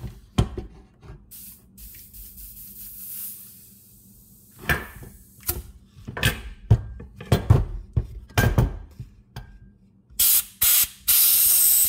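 Compressed air hissing from an air-compressor blow nozzle in short bursts, three loud ones near the end, the last about a second long, as it is forced under a stuck cover to blow it off. Before them come scattered metal knocks and clanks of the part being handled.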